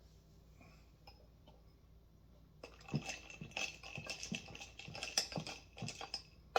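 A drink being mixed: quick, irregular clinking and rattling of glassware, starting about two and a half seconds in.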